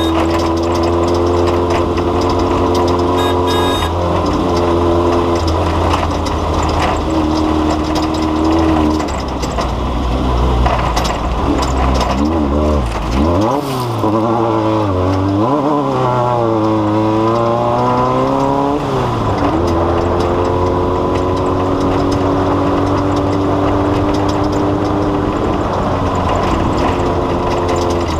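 A vehicle engine running at a steady speed. About halfway through, its pitch drops, then rises and falls several times before settling steady again.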